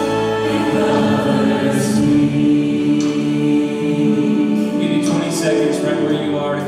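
Church orchestra and choir performing a slow worship song: sustained strings and voices, with light percussion strokes joining about five seconds in.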